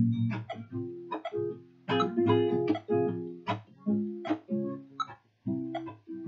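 Acoustic guitar played without singing: plucked notes and chords, each with a sharp attack that rings on, a few a second, with a short pause a little after five seconds in.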